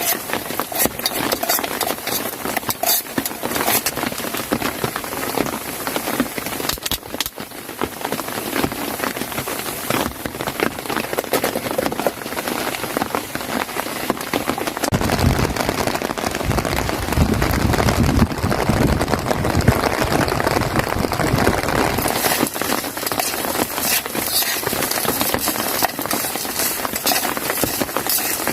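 Rain falling steadily, a dense patter of drops. A low rumble comes in about halfway through and lasts several seconds.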